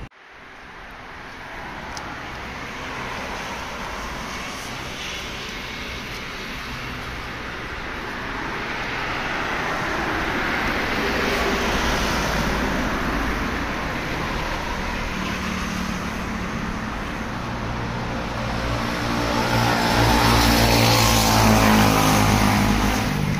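Road traffic noise swelling steadily, with a vehicle's engine hum growing loudest as it passes near the end.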